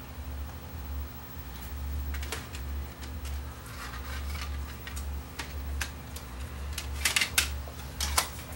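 Scattered light clicks and taps of hands working inside an opened stereo around its CD mechanism, with a small cluster about seven seconds in, over a steady low hum.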